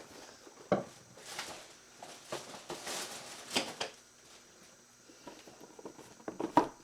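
Objects being handled and rummaged through: rustling with a sharp knock about a second in and a few quick clicks and knocks near the end.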